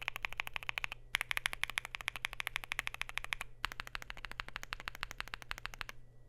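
Fast typing on a Luminkey LK65 mechanical keyboard with Gateron Sylva switches, a polycarbonate plate, a silicone gasket mount and PBT Cherry-profile keycaps: a dense run of key clicks, broken by two short pauses, that stops near the end.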